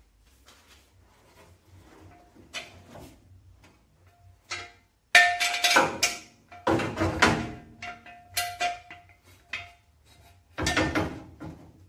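Metal clanking and ringing from a steel jack stand being set under a car's chrome front bumper. The clanks start suddenly about five seconds in and come in clusters, with a short ringing tone after the blows and another burst of clanks near the end.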